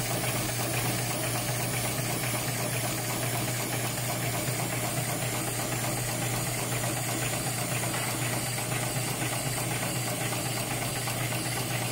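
HighTex 71008R CNC bar tacking machine sewing a stitched eye in the end of a braided rope, running with a fast, even mechanical rattle over a steady hum.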